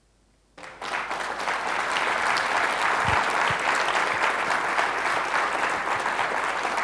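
Audience applauding, a dense clapping that starts suddenly about half a second in after near silence and keeps up steadily.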